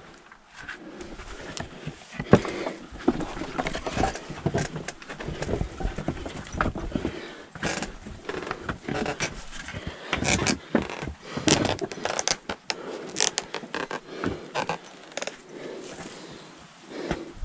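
Irregular knocks, scrapes and rustles of someone climbing a rope ladder with wooden rungs: hands gripping the ropes, feet striking the rungs and scuffing the rock, then brushing through dry leaves and branches at the top.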